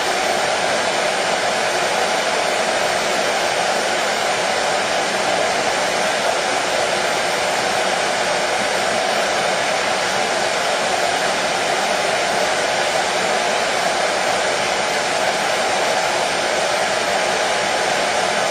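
Hair dryer running steadily, an unchanging rush of motor and air noise with no pauses or changes.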